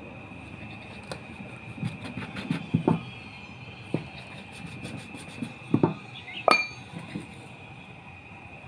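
Stainless-steel bowl clinking and knocking against a steel plate as it is pressed through rolled dough to cut rounds. The clinks come scattered, and the loudest one, about six and a half seconds in, rings briefly.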